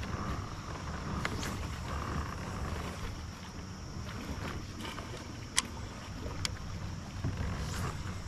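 Low steady rumble of wind and water against a fishing kayak, with a few sharp clicks or taps; the loudest comes about five and a half seconds in.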